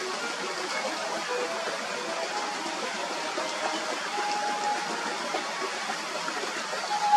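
A small stream rushing and burbling steadily over stones. Faint short held tones at changing pitches sound over the water now and then.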